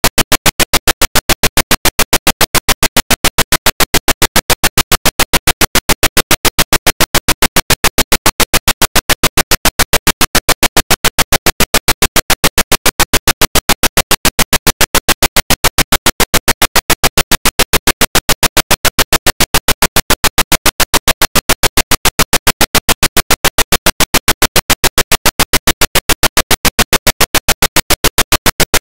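A loud, evenly spaced train of short noise pulses, several a second, repeating without change.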